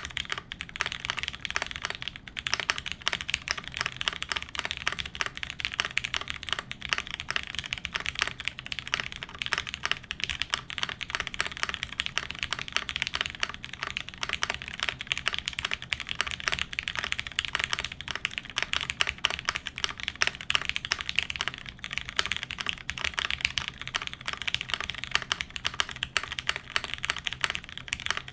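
Fast, continuous typing on a tenkeyless mechanical keyboard with Cherry MX Brown tactile switches on an aluminium top-mount plate, under GMK doubleshot ABS keycaps.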